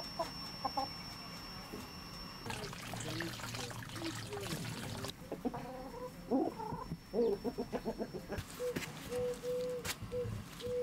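Domestic chickens clucking, hens with a rooster among them: scattered short calls that thicken around the middle. Near the end comes a run of short, even-pitched notes about two a second.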